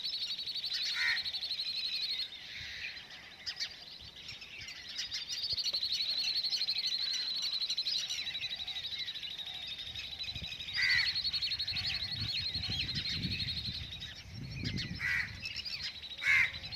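Birds calling in a morning chorus: a steady, rapidly pulsing high trill runs for several seconds at a time, broken by short, louder calls about a second in, around eleven seconds in, and twice near the end. A low rumble rises and falls between about twelve and fifteen seconds in.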